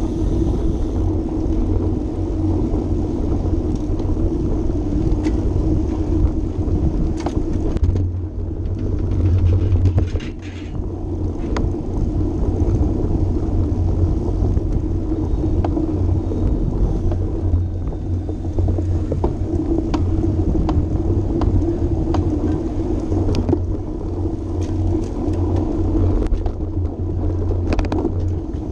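Steady low rumble of wind and tyre noise on a road bike's mounted camera microphone while riding at race speed in a pack, with scattered light clicks.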